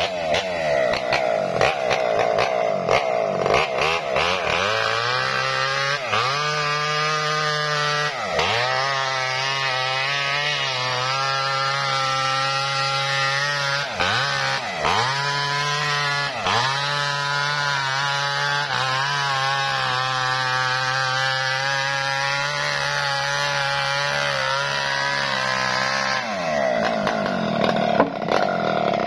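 Small Maestro two-stroke chainsaw at full throttle ripping lengthwise through a lamtoro (leucaena) log. After a few seconds the engine note drops as the chain bites into the wood, sagging several times under load. Near the end it revs back up as the cut frees.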